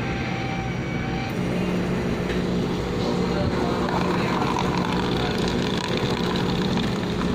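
Self-serve coffee machine's motor starts about a second in and runs with a steady hum while brewing.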